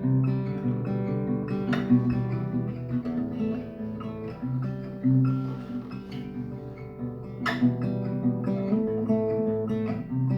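Acoustic guitar playing plucked notes and chords, with a sharp strum about two seconds in and a louder one about three quarters of the way through.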